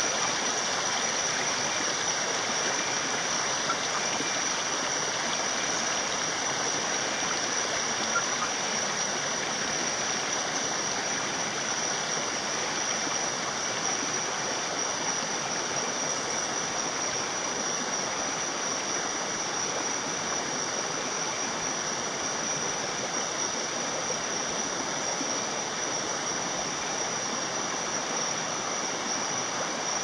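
Shallow rainforest stream running over stones: a steady, even rushing, with a steady high-pitched whine above it throughout.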